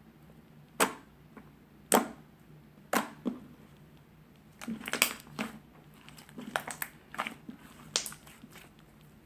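Slime being handled by hand, giving sharp clicks and pops: single ones about once a second at first, then quick clusters of them.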